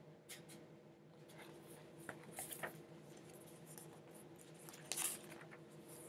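Faint rustling and handling of a picture book's paper pages, with a few soft clicks and two brief louder rustles, about two and a half and five seconds in, over a faint steady hum.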